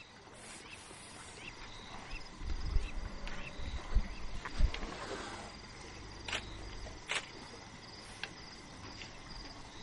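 Night insects chirping in a steady, evenly repeating high trill. Low muffled rumbles and thumps are heard from a couple of seconds in to about halfway, with two sharp clicks a little later.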